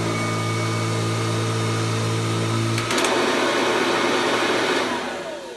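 Kirby Classic III upright vacuum cleaner running with a steady motor hum; about three seconds in there is a click and the sound changes to a louder rush of air, then the motor winds down with a falling whine and fades near the end.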